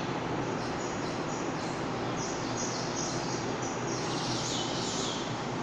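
Birds chirping in short high calls, several times over, with a longer run near the end, above a steady background hiss.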